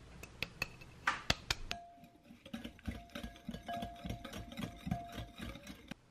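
A few sharp glass clinks, then a wire balloon whisk beating egg yolks and sugar in a glass bowl: rapid clicking of the wires against the glass, with the bowl ringing.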